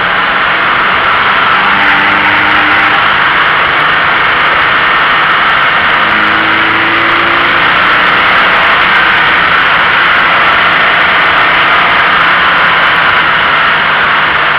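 Steady wind and road noise over a low, front-mounted camera on a Toyota GT86 driving through mountain bends, with the car's 2.0-litre flat-four engine faintly underneath, its pitch rising briefly twice.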